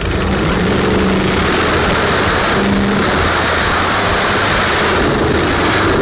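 Two drag cars launching at wide-open throttle and running down the strip: a Plymouth Duster's 340 V8 and a supercharged V8 drag car. The engines are loud and steady, jumping up sharply at the start.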